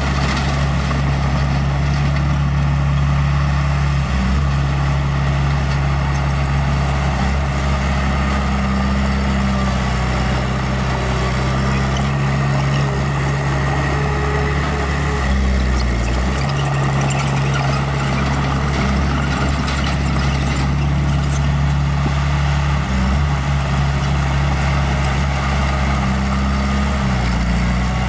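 Small bulldozer's diesel engine running steadily, its note shifting a few times as the load changes.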